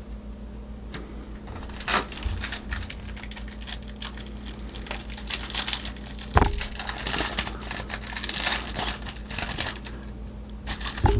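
Baseball trading cards and their pack wrapper being handled: irregular crinkling and rustling, with scattered sharper snaps, one about two seconds in.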